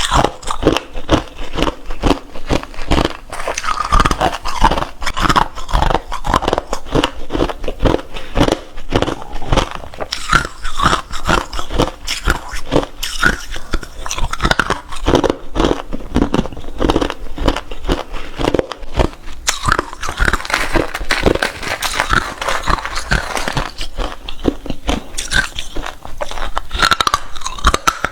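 Hard ice being bitten and chewed close to the microphone: rapid, loud, repeated crunches and crackles as the ice breaks between the teeth.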